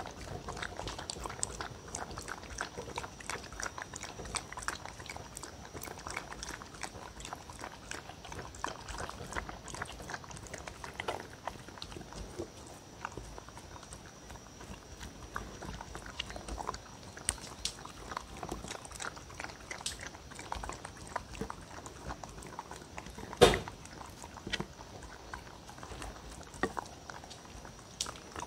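A dog lapping milk and eating cereal rings from a wooden bowl: a steady, rapid run of small wet laps and clicks. One sharp knock stands out about three quarters of the way through.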